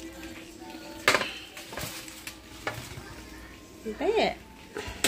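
Foil-lined metal baking sheets handled on a glass stovetop: aluminium foil crinkling and sharp metal clanks, the loudest about a second in, followed by a few lighter knocks.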